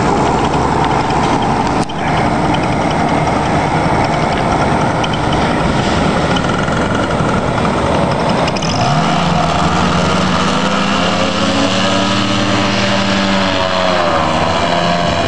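Paramotor engine running at high power under a loud rushing noise. About nine seconds in, its drone rises in pitch and settles into a clear, steady tone as the paraglider lifts off, dipping briefly and rising again near the end.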